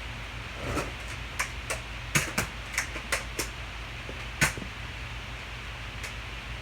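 A run of about nine sharp clicks and knocks from objects being handled, bunched between about one and four and a half seconds in, over a steady low hum.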